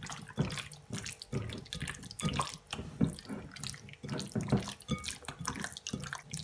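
Hand squeezing and turning raw chicken breast pieces in a wet yogurt, oil and lemon marinade in a glass bowl: irregular wet squelching and squishing.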